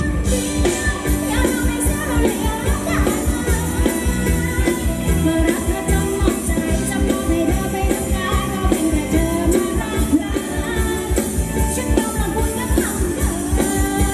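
Thai ramwong dance music played live by a band, with a steady driving beat and a singer over it.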